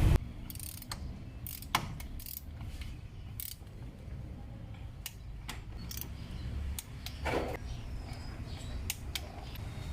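Torque wrench set to 18 Nm tightening the spark plugs, its ratchet clicking: a dozen or so sharp, light clicks at uneven intervals.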